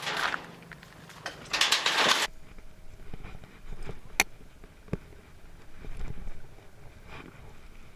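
Gear being unloaded and handled: a loud, noisy rustling or scraping burst about two seconds in that stops abruptly, then scattered clicks and knocks over a low rumble.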